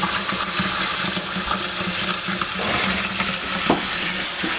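Water running from a bathtub tap, a steady rush with a low hum under it and a couple of small knocks near the end.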